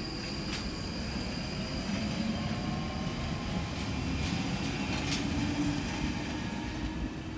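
London Underground Northern line 1995-stock train running along the platform road, its motor whine climbing gently in pitch as it gathers speed over a steady rumble of wheels on rail. A thin high wheel squeal sounds for the first few seconds, and the wheels give a few sharp clicks over rail joints.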